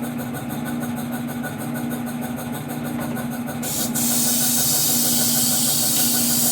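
A motor running steadily with an even hum. A loud, steady hiss joins it a little past halfway.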